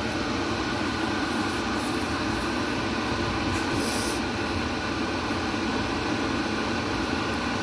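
Electric kettle heating water, a steady rushing rumble as the water nears the boil.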